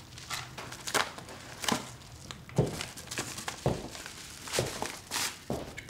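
Padded paper mailing envelope crinkling and rustling in the hands as it is handled and opened, in short irregular crackles one or two a second. A couple of dull thumps come near the middle.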